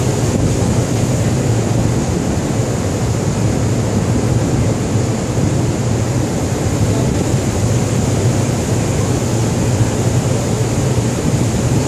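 Steady, loud drone of a ship's machinery on board: a constant low hum under an even hiss, with no change.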